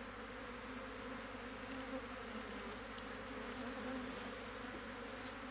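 A honeybee swarm settled on the ground, buzzing with a steady, even hum.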